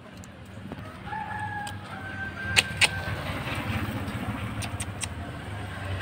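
Motorcycle engine running on the road and growing louder as it approaches. A thin high whistle sounds briefly in the first half, and two sharp clicks come about two and a half seconds in.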